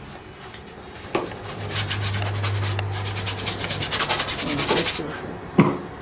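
Paintbrush scrubbing oil paint in rapid, short, scratchy back-and-forth strokes, starting about a second in and stopping near the end, followed by a single sharp knock.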